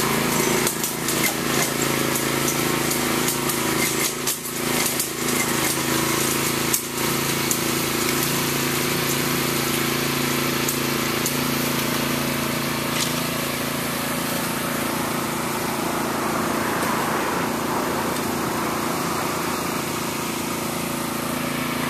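An engine runs steadily at a constant speed throughout. For the first seven seconds or so, sharp knocks and scrapes from hand tools working soil sound over it.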